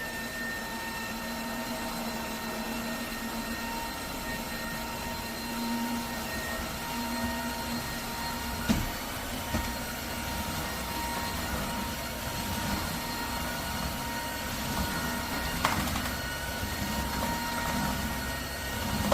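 Dreame H12S cordless wet-dry vacuum mop running in auto mode: a steady motor hum and whine over the rush of suction. Two brief knocks are heard partway through.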